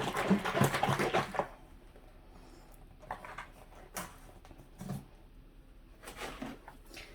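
Container of premixed white paint and Floetrol shaken hard for about the first second and a half, then a few scattered soft knocks and clicks.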